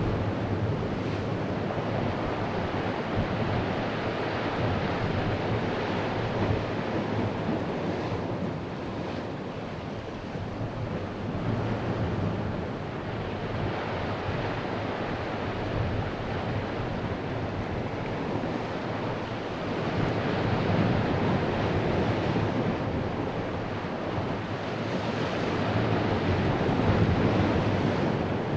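Ocean surf washing against a rocky shore, a steady rushing noise that slowly swells and eases every several seconds, with wind buffeting the microphone.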